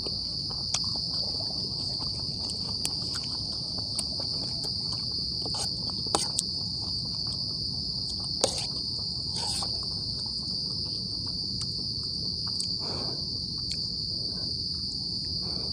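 Night insect chorus: a steady, continuous high-pitched trill of crickets, with a few short clicks scattered through it.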